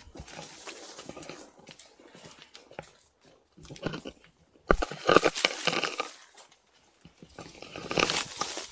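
Heavy breathing through an M65 gas mask with its filter on a long rubber hose: a series of loud, snorting breaths a second or two long with short pauses between them, the loudest about five seconds in.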